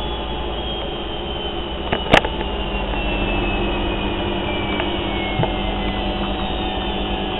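Indesit washing machine winding down from its spin, a noisy whine falling steadily in pitch over the running drum. One sharp click comes about two seconds in.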